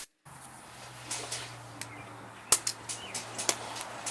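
Light clicks and taps of engine parts and hand tools being handled while the carburetor spacer on a Kohler mower engine is worked loose, one sharper tap about halfway through, over a faint steady hum.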